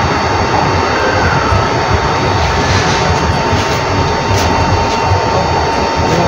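Loud, steady outdoor background noise: a continuous hiss over a fluctuating low rumble, with a thin constant high tone and no distinct event.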